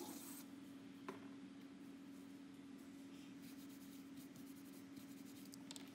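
Aerosol cleaner spraying onto a phone circuit board, the hiss cutting off about half a second in. It is followed by a faint click and then faint rubbing as a tissue wipes the board, over a steady low hum.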